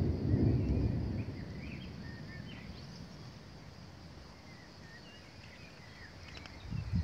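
Distant thunder rumbling and dying away over the first couple of seconds, leaving birds chirping over a steady high insect buzz. Near the end wind begins buffeting the microphone.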